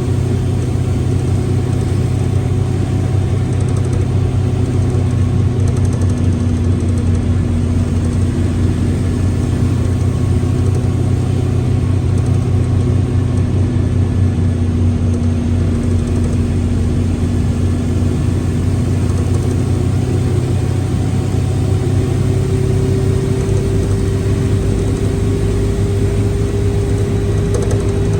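Mercedes-Benz OF1721L bus engine and drivetrain running steadily: a low drone with a drawn-out whining tone that sinks slightly in pitch. A higher tone joins about two-thirds of the way through. This is the gearbox growl ('caixa de marcha roncando') noted for this bus.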